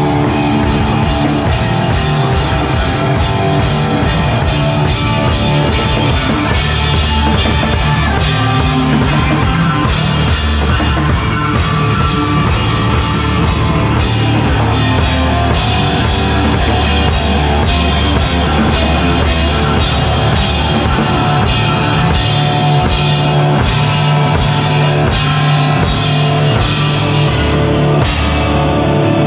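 Live instrumental heavy rock from a trio of distorted electric guitar, bass guitar and drum kit, played loud and dense. Near the end the drums stop, leaving guitar and bass ringing on.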